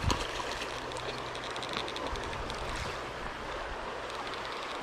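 Stream water running steadily, with a splash from the hooked rainbow trout thrashing at the surface right at the start.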